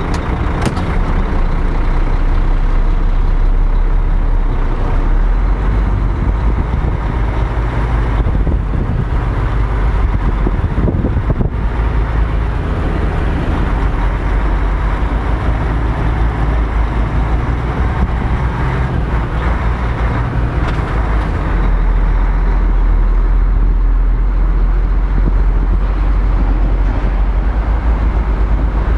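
Heavy diesel truck engine running steadily at low revs while the bitrem rig manoeuvres slowly. Its low note shifts slightly now and then.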